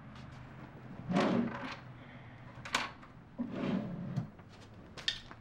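A bedside-table drawer being slid and rummaged through: two longer scraping, rustling stretches about a second in and past the middle, with sharp clicks and knocks in between and near the end.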